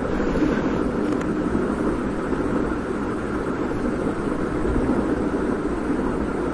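Steady rushing background noise with no clear tone or rhythm.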